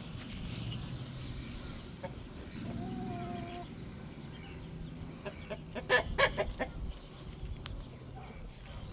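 Chickens clucking, with a quick burst of loud, sharp clucks about six seconds in.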